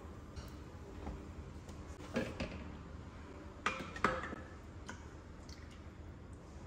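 Kitchen utensils and a nonstick frying pan being handled, with a few light clicks and knocks: two pairs of sharp clinks about two and four seconds in, among fainter ticks.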